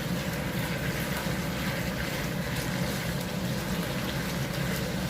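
Steady rushing noise of a pan of chicken in hoisin sauce bubbling hard over a gas flame turned up high, with faint scattered pops as the gravy reduces.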